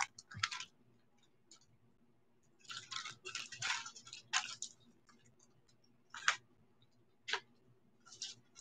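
Faint handling noise of small items being picked up: scattered light clicks, a crackly rustle from about three to nearly five seconds in, and two sharp clicks about a second apart later on.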